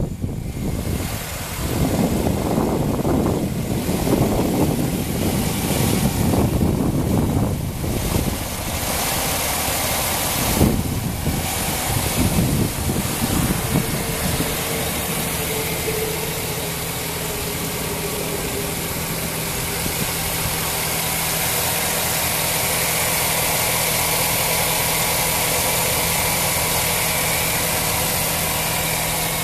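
2007 Chevrolet Silverado pickup's engine idling, heard close up in the open engine bay. Wind buffets the microphone in gusts for the first several seconds, and there is a single knock a little over a third of the way in. After that the idle runs steady and even.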